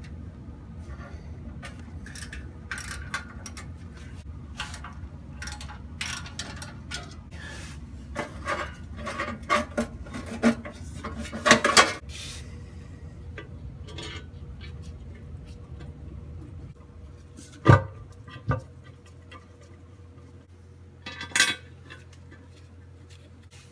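Hand tools and bolts clinking and rattling on metal in irregular bursts while fasteners are worked under the car, with two heavy knocks about three quarters of the way through.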